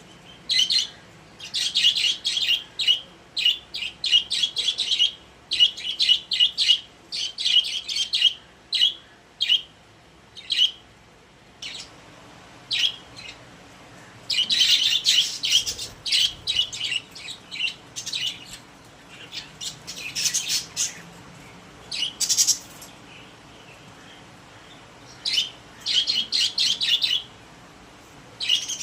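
Pet budgerigars chirping and warbling in quick bursts of short high notes, coming in clusters with brief quieter gaps.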